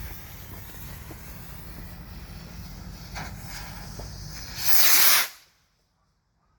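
Lit fuse of a Supreme Fireworks Flying Pig novelty rocket hissing steadily, then a loud whooshing hiss about five seconds in as the rocket's motor ignites and launches, cutting off suddenly after about half a second.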